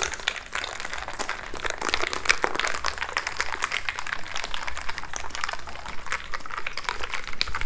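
Ice cubes rattling in a cocktail shaker as it is shaken hard: a fast, continuous clatter of ice against the shaker walls, with the liquid sloshing.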